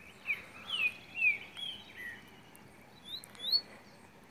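Songbird singing: a run of clear whistled notes in the first two seconds, each slurring downward, then two or three sharper, higher notes sweeping upward a little after three seconds, over a faint steady outdoor hiss.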